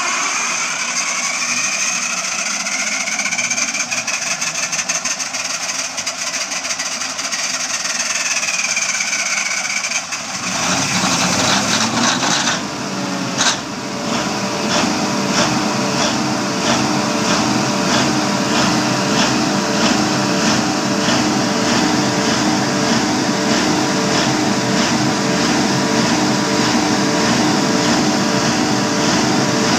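Cummins diesel generator set cold-starting: about ten seconds of cranking with a whine and fast ticking, then the engine fires with a sharp crack a few seconds later. It settles into a steady run with a slow, regular low throb.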